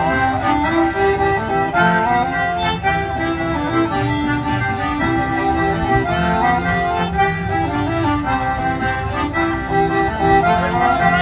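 A small live folk band playing a traditional country-dance tune, with a reedy melody line over plucked and bowed strings and a steady, even beat.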